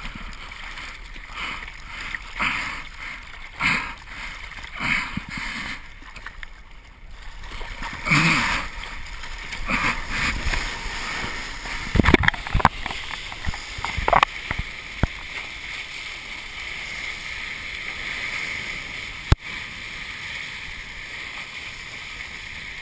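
Surfer paddling a surfboard by hand: a splash of water about once a second. Then come irregular heavier splashes and a few sharp knocks, giving way to a steady rush of water with one sharp knock near the end.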